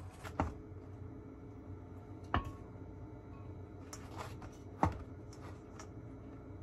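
Salad servers tossing salad in a stainless steel mixing bowl: three sharp clinks against the bowl, one ringing briefly, with softer taps between.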